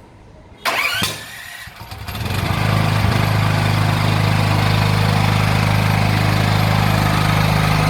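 Firman SPG8600E2 7.5 kVA petrol generator being remote-started: a sudden loud burst as the starter cranks, just under a second in, then the engine catches and from about two seconds in runs steadily.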